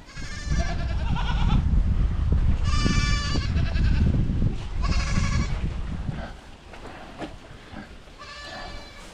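Young goats bleating: several separate calls a second or two apart, over a low rumble that dies away about six seconds in.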